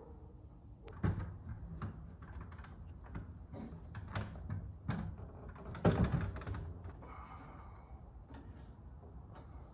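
Irregular knocks and clatters of wood being handled while a wooden barrel sauna is assembled, with two louder thumps, one about a second in and one about six seconds in.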